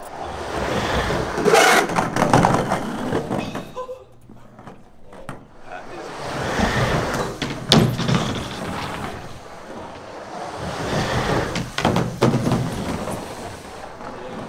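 Skateboard wheels rolling inside an empty waterslide tube. The rumble swells and fades three times as the rider carves up and down the wall, with a sharp clack at each peak.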